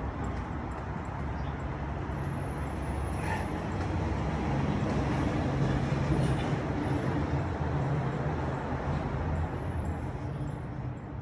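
Low engine rumble of a large vehicle passing nearby, growing louder to about the middle and then fading.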